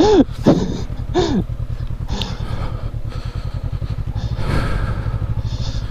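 Adventure motorcycle engine running steadily at low trail speed on dirt. A few short swooping sounds, rising then falling in pitch, come in the first second and a half.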